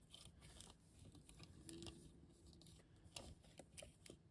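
Near silence, with faint scattered clicks and light rubbing from hands handling a small plastic toy.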